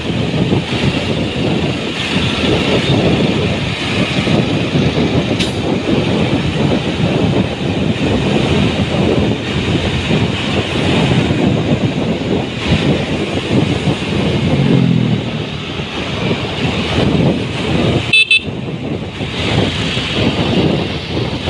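Street traffic heard from a moving motorbike: steady engine and road noise mixed with wind rush on the microphone, with vehicle horn toots. There is a brief crackle and dropout about 18 seconds in.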